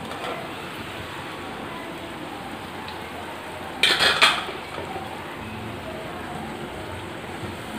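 Puris deep-frying in hot oil with a steady sizzle. About four seconds in, a metal wire-mesh skimmer clinks against the pan a few times in quick succession.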